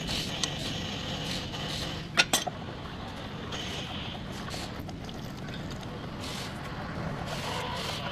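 Two sharp knocks, a fraction of a second apart, about two seconds in, over a steady background hiss.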